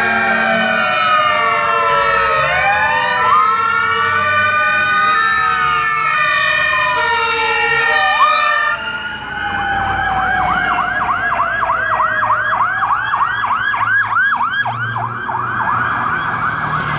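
Fire engine sirens, several at once, wailing in slow overlapping rises and falls, over the low run of the truck engines. About nine seconds in, a siren switches to a fast yelp of about three or four sweeps a second.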